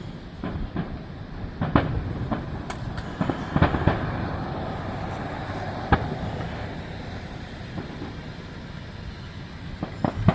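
Fireworks going off in the distance: sharp bangs about two, three and a half, six and ten seconds in, each trailing off in a low rumbling echo.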